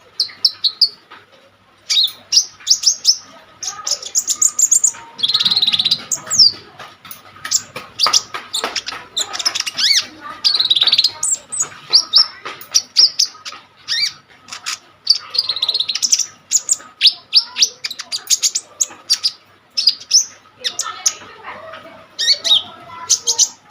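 A konin songbird singing gacor, in full voice, with a long continuous run of rapid high-pitched chirps, trills and sweeping notes, broken only by short gaps.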